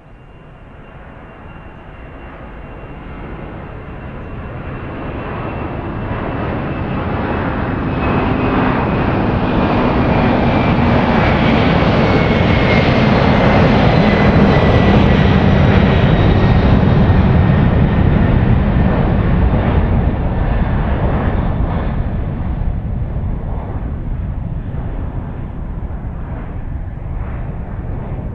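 Jet airliner's turbofan engines at takeoff power as the aircraft rolls and climbs past: the sound swells over about ten seconds, holds loud, then slowly fades. A thin high fan whine glides gradually down in pitch over the heavy rumble.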